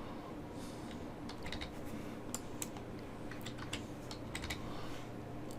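Irregular computer keyboard keystrokes and clicks, a few at a time, over a faint steady low hum.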